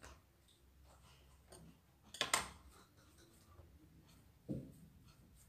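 Hands handling and rolling pastry dough on a granite worktop, faint, with a sharp knock about two seconds in and a duller thump about two seconds later.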